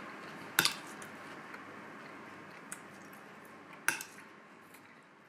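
Tableware clinking at a meal: a sharp click of dishes or cutlery about half a second in, another near four seconds and a few fainter taps, over low room noise that slowly fades out.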